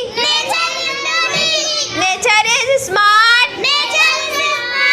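A child singing in a high voice, with long held notes that waver and bend.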